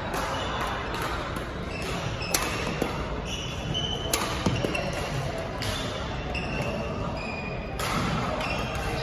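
Badminton rally on a wooden sports-hall court: a few sharp racket-on-shuttlecock hits a second or two apart, with short high squeaks of court shoes on the wooden floor between them, in the echo of a large hall.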